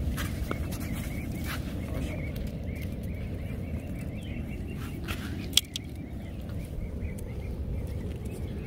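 Steady low background rumble, with faint chattering bird calls from about two to five seconds in and a single sharp click about five and a half seconds in.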